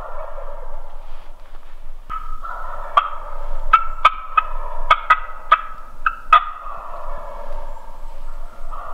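Wild turkeys calling, gobbling, with a run of sharp, loud notes from about two to six and a half seconds in.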